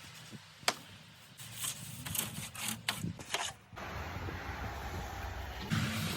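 Snow being cleared off a van: a sharp knock about a second in, then a run of short scraping strokes, then steadier rustling.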